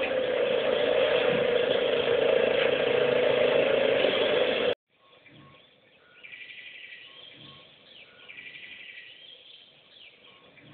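A loud, steady engine-like running noise that cuts off abruptly about five seconds in. After it, quiet outdoor background with birds chirping in short repeated calls.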